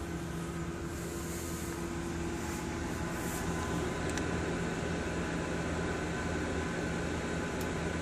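Microwave oven running: a steady hum of its transformer and cooling fan, with a faint tick about four seconds in.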